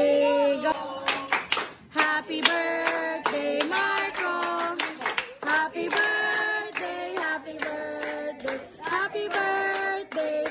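A group singing a birthday song together, clapping along throughout.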